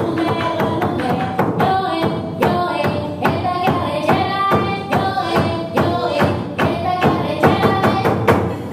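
Afro-Colombian chirimía music: a tambora drum beaten in a steady rhythm of about three strokes a second, under a melody of held notes. The music stops at the very end.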